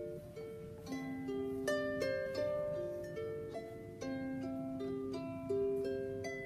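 Small wooden lever harp played by hand: a slow melody of single plucked notes that ring on over one another, with a few lower notes sustained beneath.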